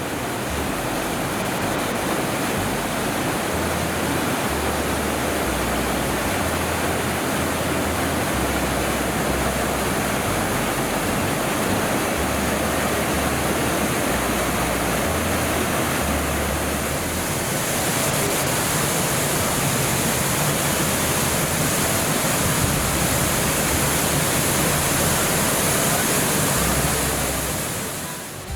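Waterfall: water rushing steadily down a mountain stream cascade, loud and even. It turns hissier about two-thirds of the way through and falls away just before the end.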